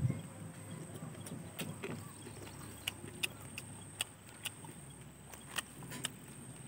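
Close-miked eating of fried chicken with the hands: a dull bump at the very start, then scattered short mouth clicks and smacks of chewing, about one or two a second, over a faint steady high-pitched tone.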